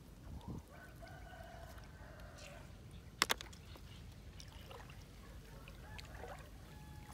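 Faint calls of domestic fowl in the background: one drawn-out call about a second in and a few shorter, fainter ones later. A single sharp click comes just after three seconds in.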